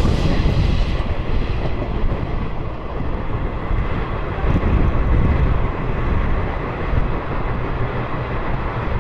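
Track sound of an express passenger train running through a station without stopping, heard from the doorway of a moving coach: a steady rumble of wheels on rail.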